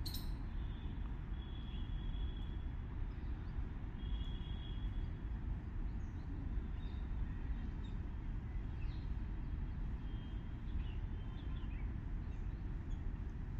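A steady low outdoor rumble, with faint small-bird chirps and short whistled notes now and then; the peafowl themselves are not calling.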